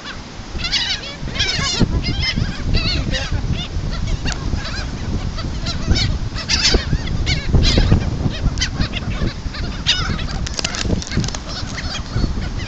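A flock of gulls calling over and over, many short wavering cries overlapping one another, above a steady low rumble.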